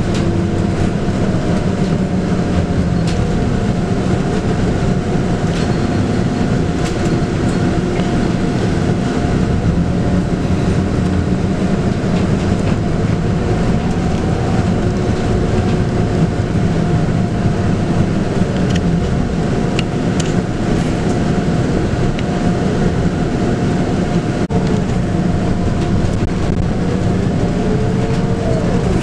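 Scania K280UB bus heard from inside the passenger cabin while under way: its 9.3-litre five-cylinder Scania DC9 diesel running with drivetrain and road noise, a steady whine, and whining tones that rise and fall gently with road speed, plus a few light rattles.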